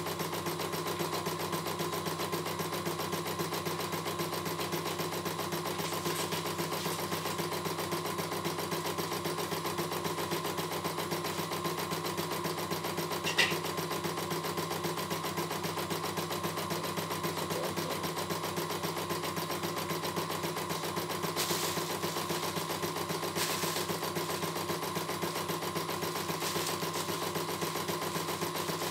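CNY E900 computerized embroidery machine stitching a design, its needle running at a fast, even rhythm over a steady motor hum. A single sharp click comes about halfway through.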